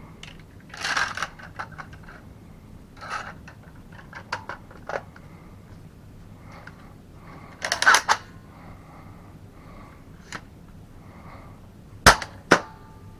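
Plastic clicks and short rattles from a Talon Claw U spring-powered foam dart blaster being worked by hand through its quick-disconnect spring mod. Near the end come two sharp cracks about half a second apart, the loudest sounds here, taken to be the blaster firing.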